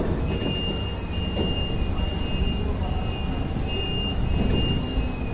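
Gas-powered STILL forklift running, its engine giving a steady low rumble, with a high steady whine over it as the mast lifts a pallet.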